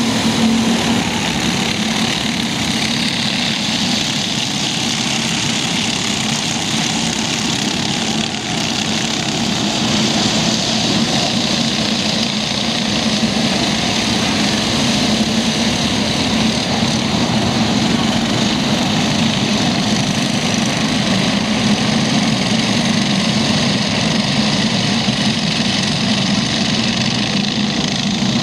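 Racing kart engines running continuously as several karts lap the circuit, a steady buzzing drone with no single clear pass-by standing out.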